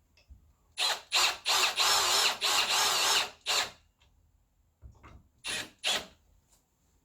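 Power drill-driver driving in a screw in short trigger pulls: a few quick bursts, a longer run of about two seconds, then two more short bursts near the end.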